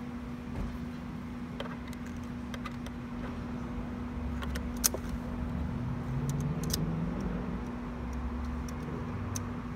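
Steady electrical hum of an NCR cash machine under a low rumble, with scattered small clicks and rattles of handling and one sharper click about halfway through.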